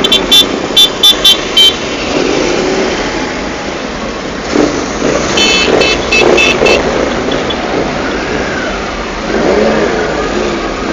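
A procession of motorcycles riding slowly past, engines running with some revving, and horns tooted in rapid short blasts: a cluster of about six in the first second and a half, and another cluster about five to seven seconds in.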